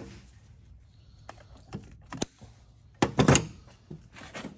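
Scattered clicks and knocks of hand tools and loose bolts being worked and handled on an engine, with a louder quick cluster of clicks about three seconds in.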